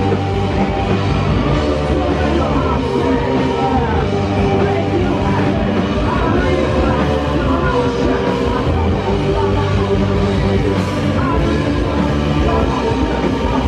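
Rock band playing loudly live: distorted electric guitars, bass and drums in a dense, unbroken wall of sound.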